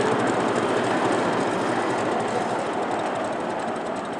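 1-inch-scale live steam locomotive running with riders aboard: a steady, rapid rush of exhaust and wheel-on-rail noise, growing fainter toward the end as it pulls away.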